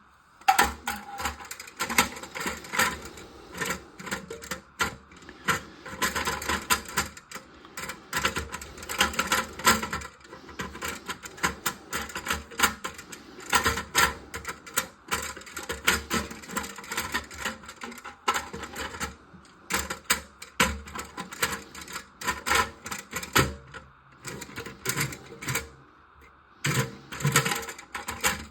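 Rapid, irregular clicking and clattering of plastic push-button toilet flush-valve parts being handled and washed out, with brief pauses.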